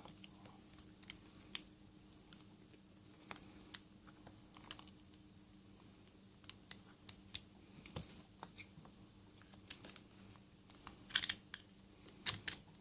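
Scattered small metallic clicks and taps of hand tools working on the deadlock's parts while trying to pry off a plate that is still held on underneath, with a short cluster of louder clicks near the end. A faint steady hum runs underneath.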